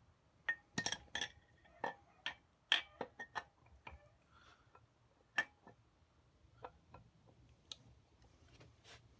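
Metal engine parts of a rotary engine being handled and set down, clinking and knocking in a quick, irregular run of sharp clicks over the first few seconds, a few of them ringing briefly, then sparser taps.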